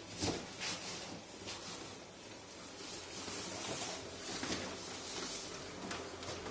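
Plastic bags and cloth rustling and crinkling in irregular bursts as clothes are handled and packed into a cardboard box.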